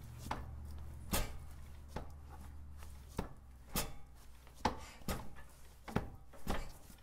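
Ural sidecar motorcycle's boxer-twin engine being turned over on the kickstarter with the engine not firing: about four kicks, each a pair of sharp clunks, to turn over a cold engine before starting it.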